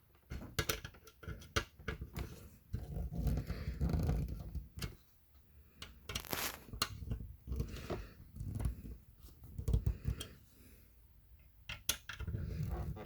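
Handling noise from assembling a model kit's frame parts and small screws: scattered sharp clicks and taps with bouts of rustling.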